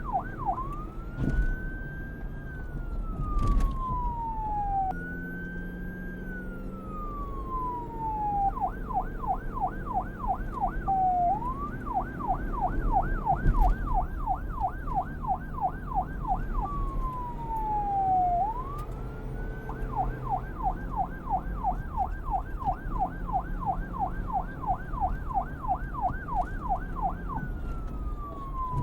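Electronic police siren switching back and forth between a slow wail, a long rise and fall, and a fast yelp of about four sweeps a second. A low rumble runs underneath.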